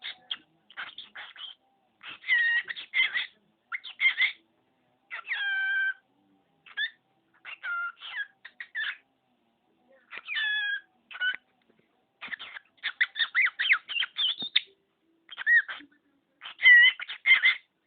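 Cockatiel chattering in its talking voice, mixed with short whistled notes, in stop-start bursts with brief pauses.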